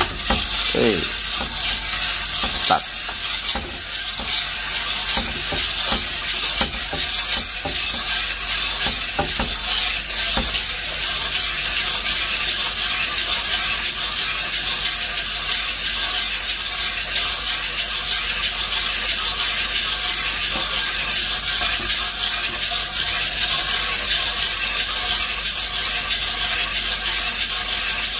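Green coffee beans rattling inside a hand-cranked, box-shaped mesh drum roaster as it turns over a portable gas stove, under the steady hiss of the burner flame, at the start of a manual roast. A few sharp knocks come in the first seconds.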